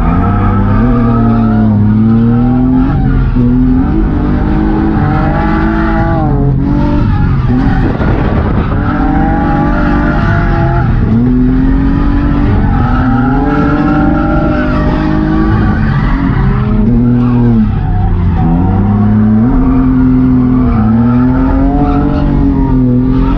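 1992 BMW E36 325i's stock M50B25 inline-six, through an ISR blast pipe exhaust, revving up and down hard through a drift, the pitch dropping sharply twice and climbing again, with tyres skidding.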